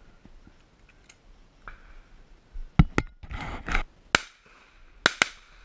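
Shotgun shots: five sharp reports starting about three seconds in, the first two and the last two close together.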